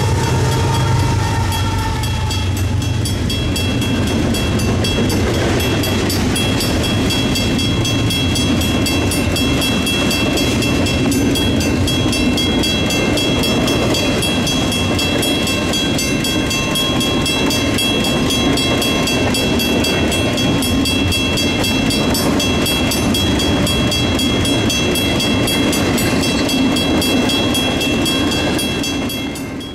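BNSF double-stack intermodal freight train rolling past at speed: a loud, steady rumble and clatter of well-car wheels on the rails. The diesel engine of the last locomotive fades in the first couple of seconds. The sound falls away at the very end.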